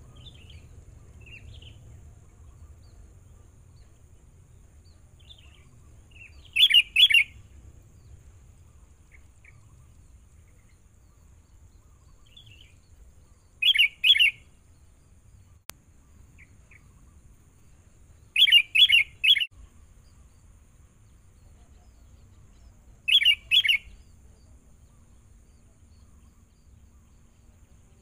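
Sooty-headed bulbul (kutilang) decoy calling to a wild bird, four short phrases of two to four quick bright notes, about five seconds apart. Fainter scattered chirps come between the phrases.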